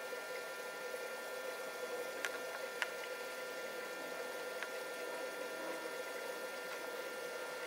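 Steady background noise with a faint high whine running through it, broken by three light clicks between about two and five seconds in.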